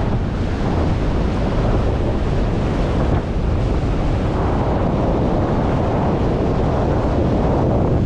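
Ocean surf washing and breaking among shoreline rocks, a steady rush, with wind buffeting the microphone as a low rumble underneath.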